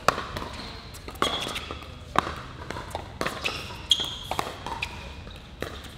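Pickleball rally: sharp pops of paddles striking the plastic ball and the ball bouncing on the court, about one a second, with short sneaker squeaks on the court surface.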